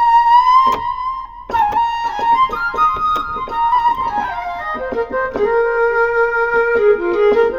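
Roland VR-09 keyboard's flute patch playing a melody. A high held note bends up slightly near the start, then the line steps down to lower held notes about halfway through.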